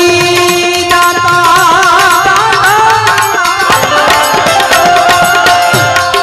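Bhajan music: a voice holding long, wavering notes over a steady harmonium and a fast hand-drum beat.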